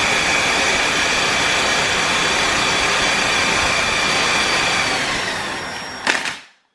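Milwaukee cordless impact driver spinning a small motor used as a generator under very light load: a loud, steady whine. It winds down about five seconds in and stops with a click a second later.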